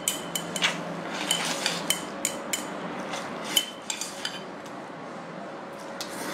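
Chopsticks clicking and scraping against a ceramic bowl while spicy instant noodles are slurped up. Several clicks ring briefly, and they thin out after about four seconds.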